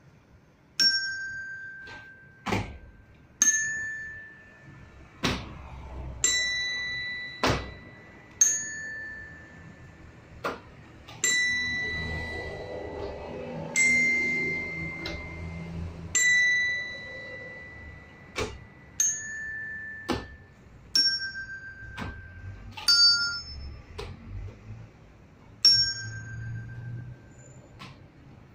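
Tuned bells struck one note at a time, each ringing for about a second, stepping up the C major scale to the top C and back down again, one note per step. Sharp knocks fall between some of the notes.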